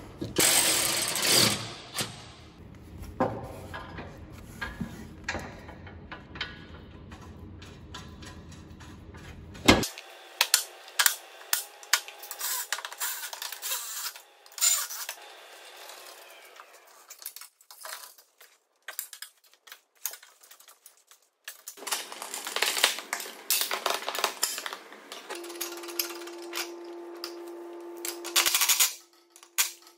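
Clinks and knocks of steel mulching baffles and bolts being handled and fitted to a mower deck, with short runs of a cordless DeWalt power driver fastening bolts. The driver runs several times in the second half, the loudest near the end.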